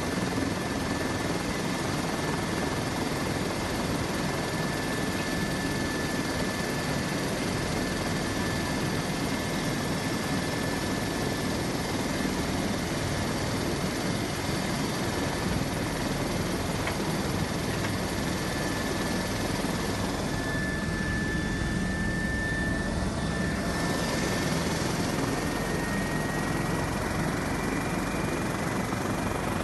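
Helicopter turbine engine and rotor running on the ground: a steady rushing noise with a thin high whine that rises slightly in pitch near the end.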